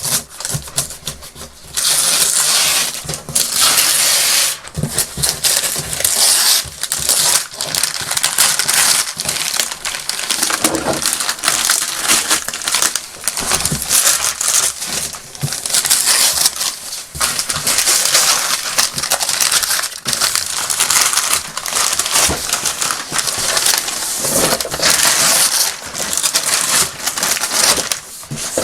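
Wrapping paper being torn and crumpled off a large cardboard box: continuous rustling and ripping, with a few short pauses.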